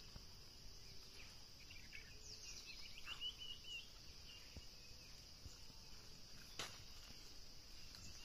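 Faint, steady high-pitched drone of insects, with a short bird chirping about two to three and a half seconds in and a sharp click about six and a half seconds in.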